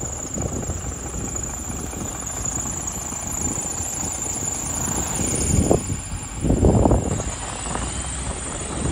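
Street traffic rumbling on a snowy road, with wind gusting on the microphone, loudest about six to seven seconds in. A thin, steady high whine runs over it.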